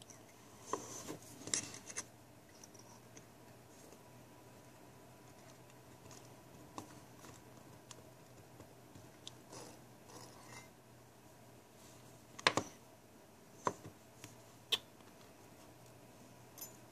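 Small screwdriver and coil wire scraping and clicking against the metal posts and screws of a rebuildable dripping atomizer deck while the coils are adjusted. Faint scattered scrapes, with a few sharp metallic clicks about a second apart in the second half.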